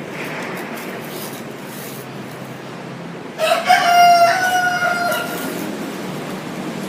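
A rooster crowing once, starting about three and a half seconds in: a short rising start, then a long held note that trails off, over steady background noise.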